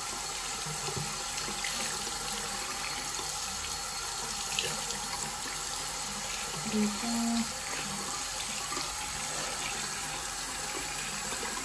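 Tap water running steadily into a sink basin and splashing over a silicone facial cleansing brush as it is rinsed by hand.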